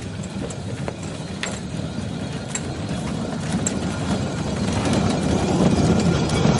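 Steel wheels of a horse-drawn narrow-gauge railway car rumbling along the rails, with a few sharp clicks, growing louder as the car passes close by.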